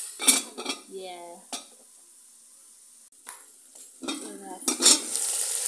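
Aluminium pot lid clanking down onto a pot of sizzling beef, which muffles the sizzle to a low hush. About four seconds in there are more metal clanks as the lid comes off, and the sizzling comes back loud: the cooking water has boiled away and the meat is frying.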